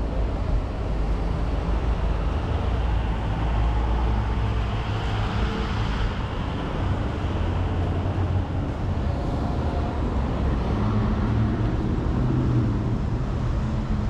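Street traffic: a steady rumble of road vehicles, swelling as a vehicle passes about halfway through, with an engine humming near the end.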